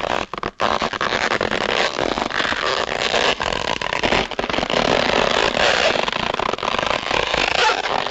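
Sound-effect recording of a dense, rapid rattle of sharp cracks over a steady rushing noise, starting abruptly.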